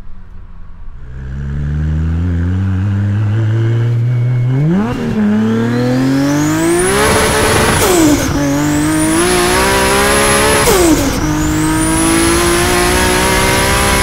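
Big-single-turbo Toyota Supra 2JZ straight-six at hard acceleration, its note climbing through the gears with sharp breaks at three upshifts. A high turbo whistle rises and holds through each pull, with a short rush of noise at each shift, and the engine drops off as the throttle lifts near the end.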